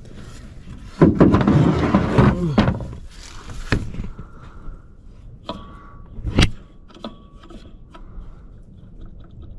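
Turbocharger compressor wheel spun by hand, whirring and winding down with a falling pitch about a second in. Sharp knocks and clicks follow as the turbo is handled; the turbo has shaft play.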